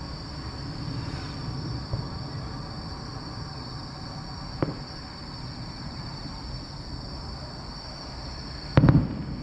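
Fireworks at night: faint sharp pops about two and four and a half seconds in, then one loud firework bang near the end, over a steady high chirring of insects.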